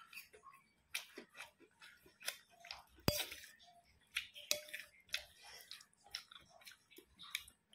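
A person chewing a mouthful of rice and fried chicken up close, in many short irregular wet clicks. About three seconds in, a metal spoon clinks sharply against the plate.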